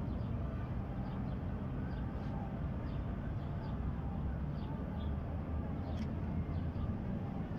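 Outdoor ambience: a steady low rumble with faint, high bird chirps scattered through it, and a single brief click about six seconds in.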